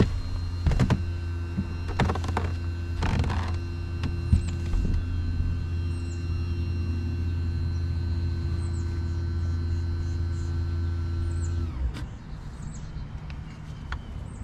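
Bass boat's electric trolling motor running with a steady hum and whine, then switched off and winding down about twelve seconds in. A few sharp knocks come in the first few seconds.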